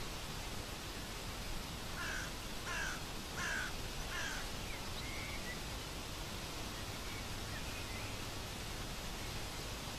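A bird gives four harsh, cawing calls in quick succession about two seconds in, over a steady outdoor hiss, with a few faint chirps of small birds.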